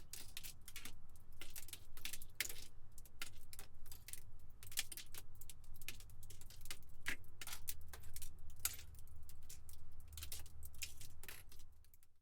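Broken glass debris tinkling and clinking: many small, sharp, irregular clicks of shards falling and settling over a faint low rumble, dying away at the very end.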